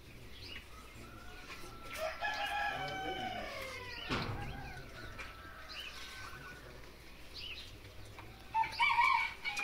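A rooster crowing once, a long call of about two and a half seconds that falls in pitch at the end. A single thump comes about four seconds in, and near the end a few short, louder calls.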